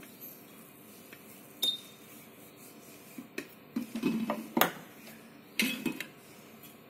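Metal clatter of a perforated stainless steel tray and an etching head being handled on a bench: one sharp clink with a brief ring, then a run of knocks and rattles over about three seconds.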